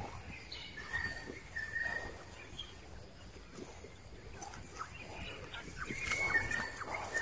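Young macaques giving short high squeaks, a few about a second in and more near the end, over light rustling of leaves and bamboo as they climb.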